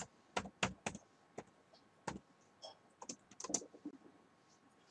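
Typing on a computer keyboard: a string of separate keystrokes at uneven spacing, with a quicker cluster about three and a half seconds in.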